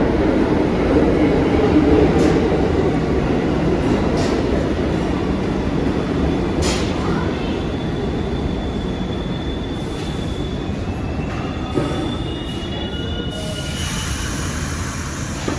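New York City subway train running on the express track, a heavy steady rumble that slowly eases off, with a few sharp clacks over the rail joints early on. High thin wheel squeals come in from about the middle and grow into several overlapping squeals near the end.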